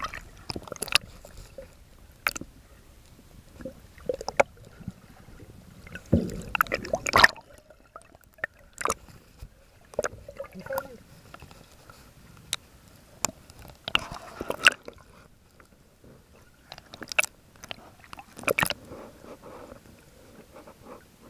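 Underwater sound heard from the camera: a low wash of moving water with scattered sharp clicks and knocks, and bubbling gurgles in two bursts, about six seconds in and again about fourteen seconds in.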